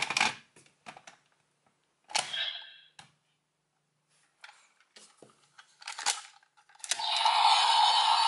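Plastic clicks and knocks of a DX Kaenken Rekka toy sword being handled and set down, with a brief toy sound effect about two seconds in. About a second before the end a loud, continuous electronic sound effect starts playing from the toy as a Wonder Ride Book is opened.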